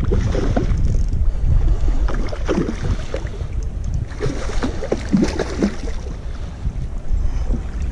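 Wind buffeting the microphone with a steady low rumble, and a hooked rainbow trout splashing and thrashing at the water's surface in short bursts while it is played on the line.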